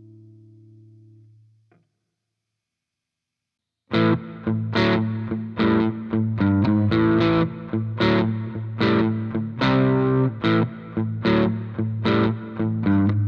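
Electric guitar played through a Playwell Tank-G effects unit: a held chord fades out, then after about two seconds of silence a new preset starts with a riff of repeated, sharply picked chords.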